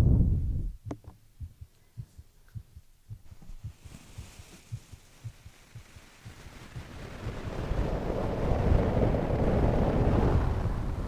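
A sleeping person breathing slowly and heavily close to the microphone, with a heartbeat. One breath dies away about a second in, and soft low heartbeat thumps come through in the pause. The next breath then swells up slowly over the last few seconds.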